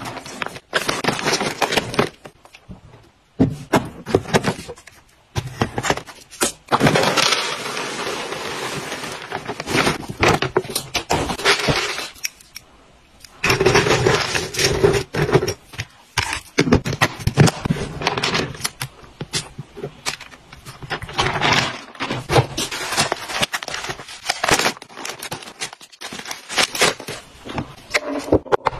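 Dry round pet-treat pellets rattling and clattering against a clear plastic storage box as hands pour and rake through them, with crinkling of plastic treat packaging. The noise comes in long dense stretches of crackling and clicking broken by short pauses, and near the end a plastic clip-lock lid is handled.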